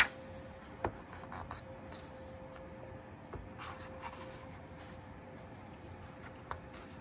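Hands tapping and rubbing on the paper pages of a picture book, with soft rustles and a few light clicks. A page is turned near the end.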